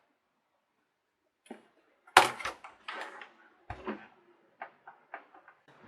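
Handling noise at a work table: a loud knock about two seconds in, then several lighter clicks and knocks as sewing tools and the bag are picked up and put down.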